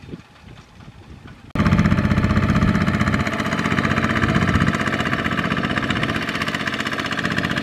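Single-cylinder Kubota ZT140 diesel engine of a two-wheel walking tractor running while it pulls a loaded trailer, with a quick, even knocking beat. The engine is faint at first, then comes in loud and abruptly about a second and a half in.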